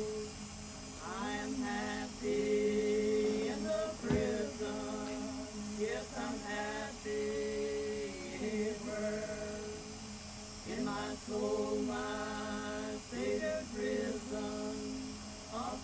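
Background music: a song with a singing voice carrying a slow melody.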